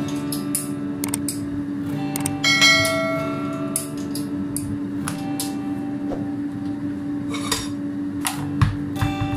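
Stainless-steel cooking pot and lid clanking as they are handled: several sharp metal knocks, some ringing briefly, the loudest about two and a half seconds in, over a steady hum.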